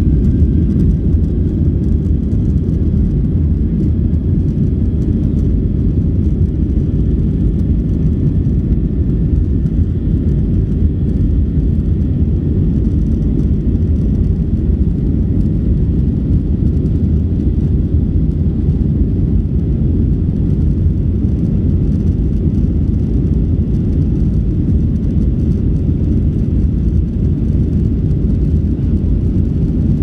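Airliner cabin noise in flight: a steady low rumble of engines and airflow, with a faint high engine whine above it.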